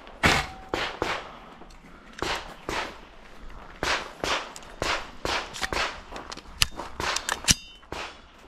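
Footsteps on gravel and a perforated steel grating plate, a string of sharp knocks about two a second. Near the end come two loud metallic clicks, the second with a brief ring, as the pistol-calibre carbine is handled.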